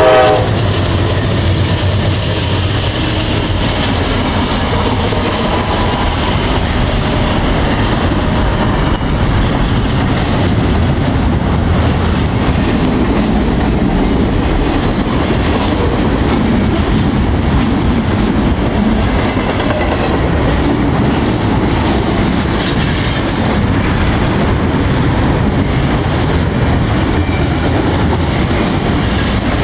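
Norfolk Southern freight train passing at a grade crossing. A horn note cuts off right at the start and the diesel locomotive's engine hum passes in the first few seconds. After that comes a steady, loud rumble and clatter of double-stack container cars rolling over the rails.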